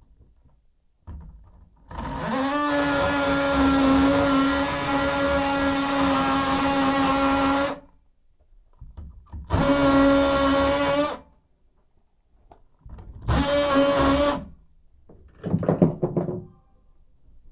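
DeWalt cordless oscillating multi-tool running at a steady high buzz in three bursts: a long one of about six seconds, then two of a second or so each. A short scuffing sound follows near the end.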